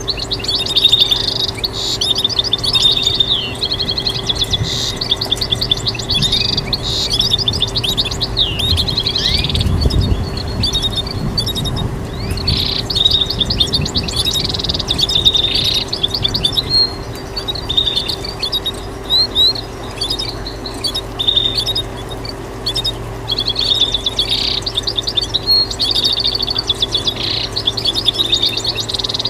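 European goldfinch singing a fast, continuous twittering song of rapid trills, chirps and quick pitch sweeps, over a steady low hum.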